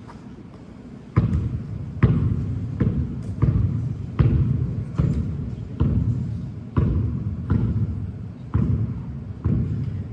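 A basketball being dribbled on a court: about eleven bounces, a little more than one a second, starting about a second in.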